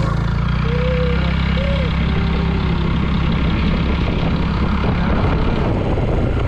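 Motor vehicle engine running with a steady low hum, turning into a rougher, noisier rumble about halfway through.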